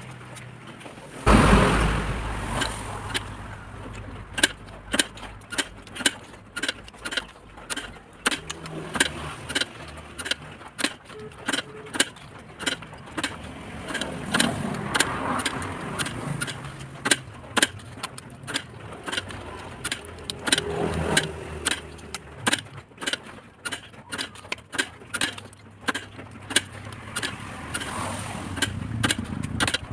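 Hand tools clicking and knocking irregularly on the metal parts of a 750 W electric water pump under repair, with a louder clatter and a brief low hum about a second in.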